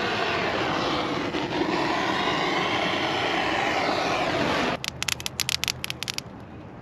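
An aircraft engine drone, a loud rushing noise with slowly sweeping whooshes in it. It cuts off abruptly about four and a half seconds in, leaving a quick run of sharp crackles over a low hum.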